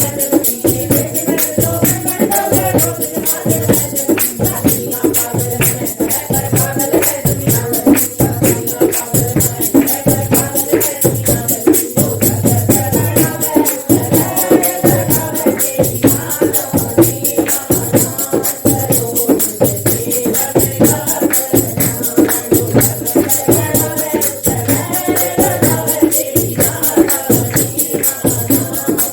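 Devotional bhajan: singing over a fast, steady beat of jingling hand percussion.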